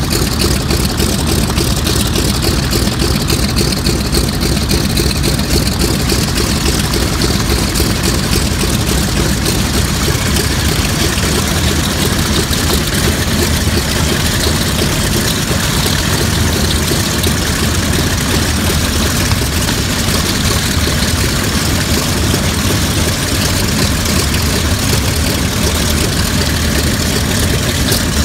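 World War II Mitsubishi A6M Zero fighter's radial engine idling steadily on the ground with its propeller turning.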